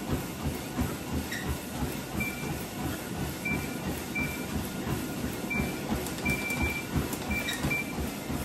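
Treadmill running, with a person walking on the moving belt: steady footfalls about twice a second. A few short, high beeps sound among them.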